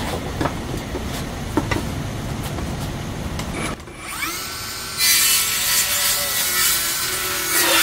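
Cordless brushless mini circular saw spinning up about four seconds in, its motor whine rising and then holding steady. About a second later the blade bites into a wooden board and cuts through it with a loud, steady rasp over the whine, until the motor winds down at the end.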